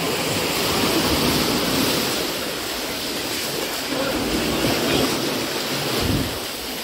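Small sea waves washing up a sandy beach in the shallows, a steady rush of surf that swells louder about a second in and again near five seconds.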